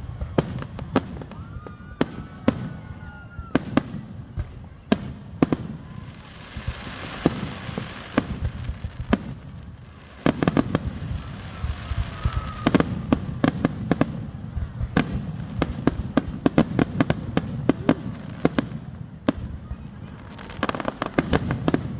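Aerial fireworks display: a steady run of bangs and crackles, with a few brief whistles. About halfway through, and again near the end, the bursts come fast and thick in rapid crackling volleys.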